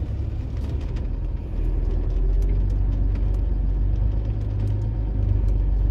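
Vehicle engine running, a steady low rumble that grows louder about a second and a half in, with a few faint clicks over it.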